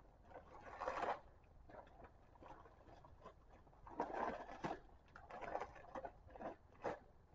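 Irregular rustling and light clicks and knocks of small objects being handled.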